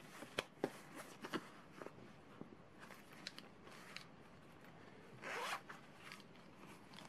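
Zipper on a fabric pencil case run once in a short rising rasp about five seconds in, after light clicks and rustles as the case is handled.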